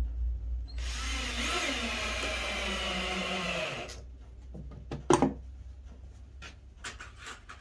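Cordless Milwaukee M18 drill/driver running for about three seconds as it drives a wood screw through the drawer box into the drawer front, stopping once the screw is snug. A few light sharp knocks follow near the end.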